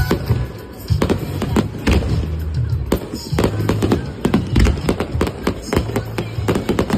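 Fireworks shells bursting in rapid, irregular succession, many sharp bangs a second, in a fireworks-display finale, with music playing from loudspeakers underneath.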